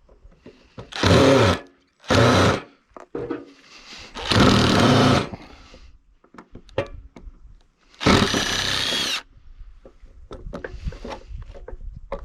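Handheld power tool run in four short bursts, working into the concrete-like fill inside a steel safe door, with knocks and rattles between the bursts.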